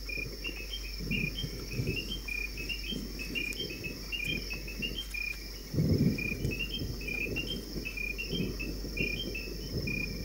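Night insect chorus: a steady high buzz with a repeating phrase of short chirps over it. Under it runs irregular low rustling, loudest about six seconds in.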